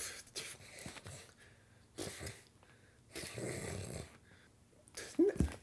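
A person's noisy, wheezy breaths in a few separate bursts, the longest about three seconds in.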